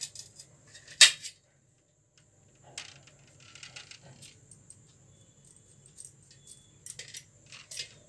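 Small knife clicking and clinking against a stainless steel plate as baby corn is cut into small pieces, with the sharpest clink about a second in and scattered lighter clicks after.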